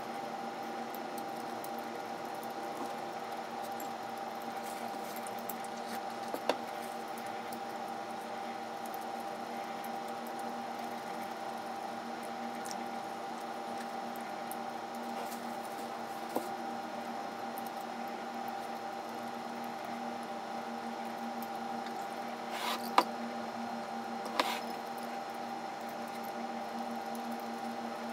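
Steady background hum with several held tones, broken by four sharp clicks of wooden chopsticks against a glass bowl, the loudest late on. Faint wet eating sounds in between.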